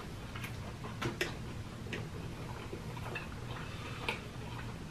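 Close-miked mukbang eating sounds: a man chewing and smacking his lips on a forkful of food, giving irregular wet clicks, the sharpest about a second in and near the end, over a low steady hum.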